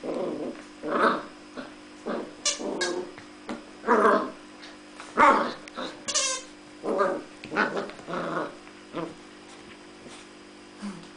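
A ten-week-old poodle puppy growls in short bursts in quick succession while chewing and tugging a plush toy duck. The growls stop near the end.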